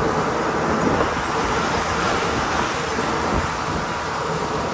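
Truck engine running steadily under road and wind noise while the truck is being driven.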